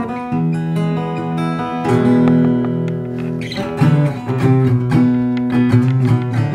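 Steel-string acoustic guitar strung with D'Addario EZ890 strings, fingerpicked: low bass notes ring under a higher melody, with a run of sharper, quicker plucks in the second half.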